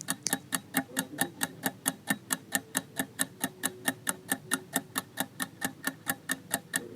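Countdown-timer ticking sound effect: quick, even ticks, about five a second.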